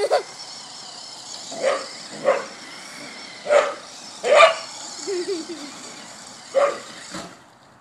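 Border collie barking six times, short sharp barks at uneven intervals, while chasing an electric radio-controlled car (Duratrax Evader), whose motor gives a steady high whine underneath that stops shortly before the end.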